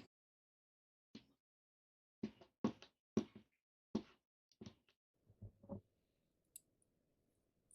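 A series of about eight short, irregular knocks and taps over roughly five seconds, like parts being tapped or set down on a workbench, followed by a faint low hiss.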